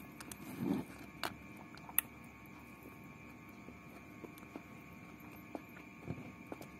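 Faint close-up eating sounds: chewing a mouthful of pork and rice, with small clicks and rustles as fingers pick rice from the paper wrapper, one sharper click about two seconds in, over a faint steady hum.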